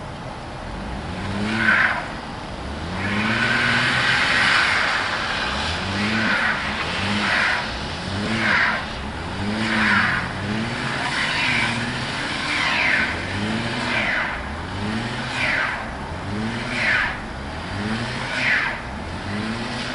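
Car engine revving up and falling back about every second and a half while the drive wheels spin and whine on packed snow: a car stuck in a snowbank, being rocked and pushed to get it free.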